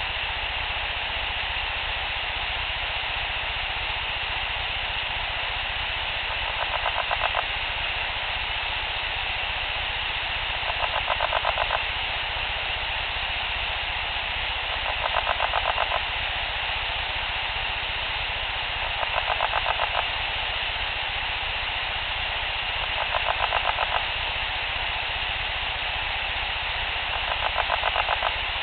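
An unidentified raspy, throaty call repeated six times, about every four seconds. Each call lasts about a second, is made of rapid pulses, and swells slightly. A steady hiss of recording noise runs underneath.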